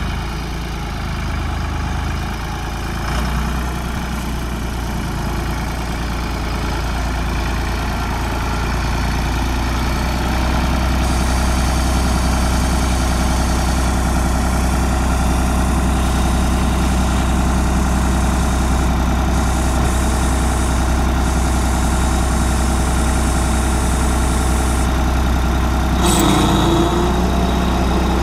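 1988 Ford 4610 tractor's three-cylinder diesel engine running steadily as the tractor drives slowly; it gets a little louder about ten seconds in. A brief louder noise comes near the end.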